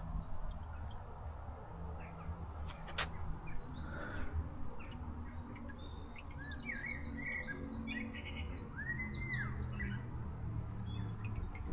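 Several small birds singing and calling at once: overlapping high chirps, rapid buzzy trills and an occasional arched whistle, over a low steady rumble.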